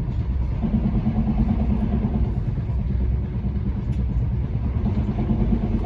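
Inside a moving passenger train: a steady low rumble of the running train, with a steady hum joining it about half a second in.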